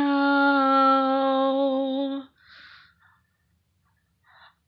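A woman singing unaccompanied, holding one long steady note on the word "now" for about two seconds before stopping.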